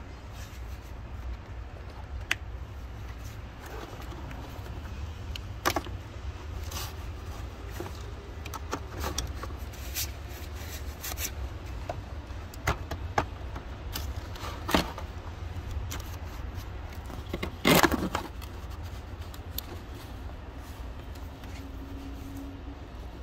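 Scattered light clicks and scrapes of a metal pick tool prying at the plastic clips of a diesel exhaust fluid (DEF) feed line connector, with a louder cluster of clicks about three-quarters of the way through, over a steady low rumble.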